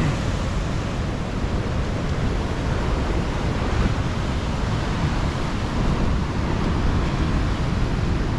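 Rough sea surf breaking hard, a continuous noisy wash of waves, with wind blowing on the microphone.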